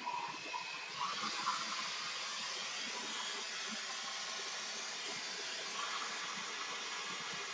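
Acetylene brazing torch flame hissing steadily while it heats a copper refrigerant-line joint for brazing.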